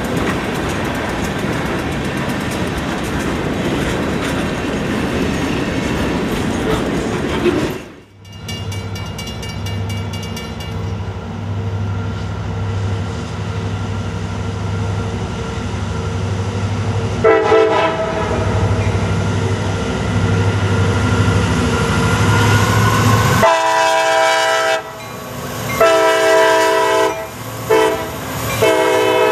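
Freight cars rolling past with rail clatter, then a cut to the low steady drone of approaching EMD SD60M diesel locomotives. The air horn gives a short sound, then several long blasts with short breaks as the lead units pass.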